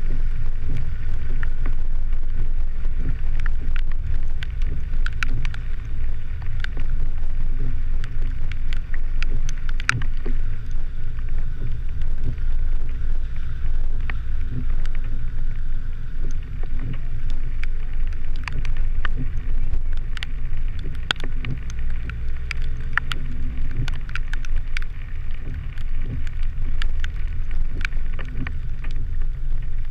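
Steady, muffled low rumble of a vehicle driving over a rough dirt road, picked up by a camera mounted on its hood, with many scattered sharp ticks throughout.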